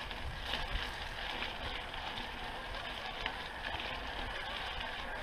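Mountain unicycle tyre rolling downhill over a wet gravel path: a steady crunching hiss with scattered small clicks from the stones, over a low rumble of wind on the camera microphone.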